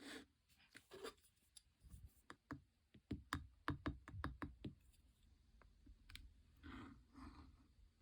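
Slime being squeezed and stretched by hand, giving a quick run of small sticky clicks and pops, densest in the middle, with soft squishing between.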